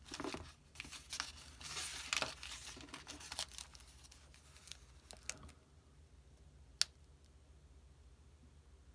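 Paper rustling and crinkling as the pages of an old booklet are handled and turned, lasting about five seconds, followed by a single sharp click near the end.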